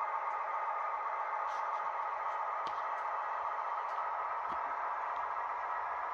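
Model railway coaches rolling along the track: a steady rolling rumble with a few faint, irregular clicks as the wheels cross rail joints.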